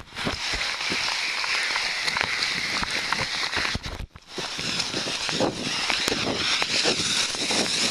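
Steady hiss of heavy rain mixed with the spray of car tyres on a wet road. The sound briefly drops out about four seconds in.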